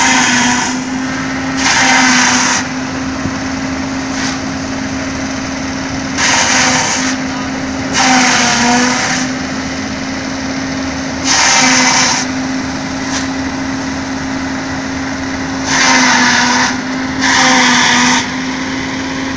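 Tractor-driven fodder chopper running at a steady hum. About seven loud, roughly one-second chopping rushes come as bundles of stalks are fed in, and the engine's tone sags slightly under several of them.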